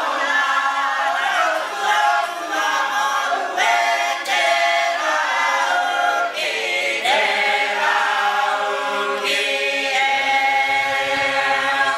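Imene tuki, the traditional unaccompanied Cook Islands Māori hymn singing: a choir of men and women singing together in several parts, and the many overlapping voices stop abruptly at the very end.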